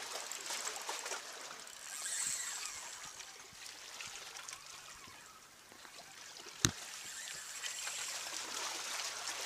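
Sea water lapping and trickling among shoreline rocks. A single sharp click comes about two-thirds of the way in and is the loudest sound.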